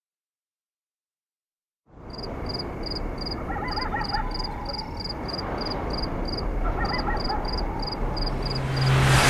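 Night nature ambience fading in after about two seconds of silence: an insect, like a cricket, chirping evenly at about three chirps a second, and a frog's trilling croak twice, over a soft hiss. A low hum comes in near the end and grows louder.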